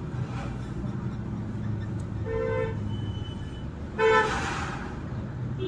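Two short vehicle horn toots, the second louder, over a steady low engine hum.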